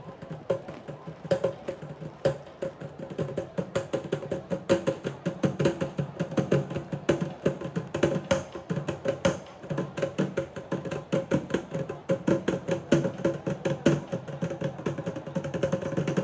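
Traditional Sri Lankan drums, a two-headed drum struck with a stick and a long barrel drum played by hand, beating a fast, steady rhythm. The strokes grow denser and louder after about four seconds.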